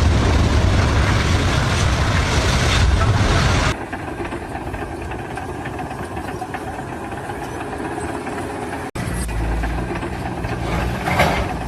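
Engine-driven machinery running with a steady low hum and mechanical noise. The sound changes abruptly twice, about four and nine seconds in.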